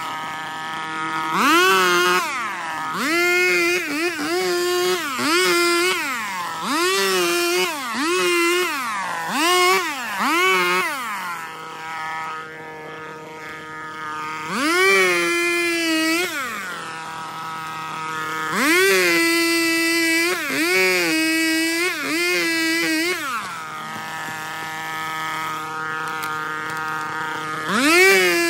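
Petrol chainsaw cutting a fallen tree branch, revving up and back down in about eight quick bursts and then in a few longer ones. It drops back to a steady idle between cuts.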